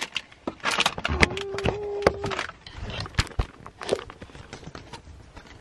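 Handling noise inside a car: clicks, knocks and rustling of packaging and a camera being moved about, busiest in the first half. A short steady tone sounds about a second in and lasts about a second.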